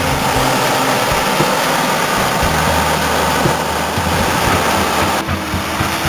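Claas Lexion 570 combine harvester running steadily under load while harvesting, with a tractor's engine alongside. The sound changes abruptly a little before the end.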